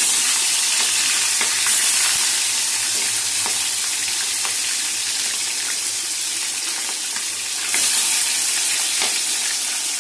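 Aar fish steaks frying in hot oil in a wok: a steady, loud sizzle with scattered crackling spatter, since this fish spatters a lot. The sizzle surges twice as more steaks are slid into the oil.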